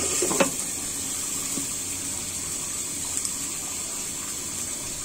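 Rui fish frying in oil in a pan covered with a glass lid: a steady sizzle, with one light knock of the lid near the start.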